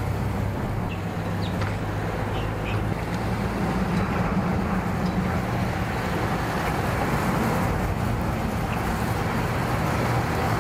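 A vehicle engine idling, a steady low hum that stays even throughout.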